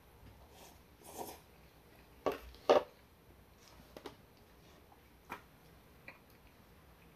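Table-side eating sounds: a short slurp of udon noodles about a second in, then two sharp knocks close together as the lacquered bowl is set down on the table, followed by a few faint clicks of chopsticks in the foil tray.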